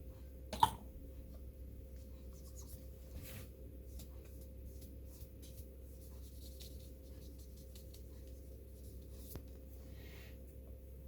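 Paper wiping the surface of an iPhone 7 LCD screen clean, a faint scratchy rubbing in short strokes. One sharp click about half a second in, over a steady low hum.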